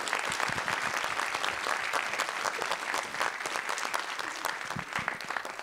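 Audience applauding, many hands clapping, thinning out near the end.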